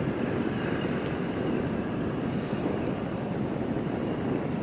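Strong wind buffeting the microphone: a steady, rough rumble with no distinct events.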